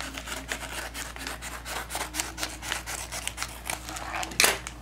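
Mailing package being worked open by hand: scratchy rubbing and crackling of paper and tape, with one louder sharp rip near the end.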